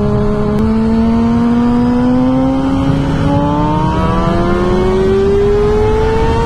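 2009 Kawasaki ZX-6R's inline-four sport-bike engine through a full aftermarket exhaust, pulling steadily with its pitch rising slowly as the bike gathers speed, over loud wind rush.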